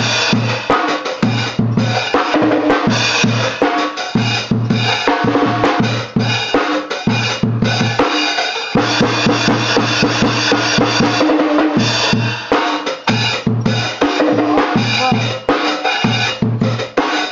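Child-size Pulse drum kit played hard and fast: a driving bass-drum beat with snare and tom hits under nearly constant cymbal crashes.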